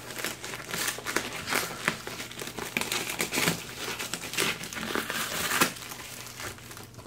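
Paper packaging crinkling and rustling under the hands as a padded kraft mailer is worked out of a cardboard mailing envelope, with quick irregular crackles throughout.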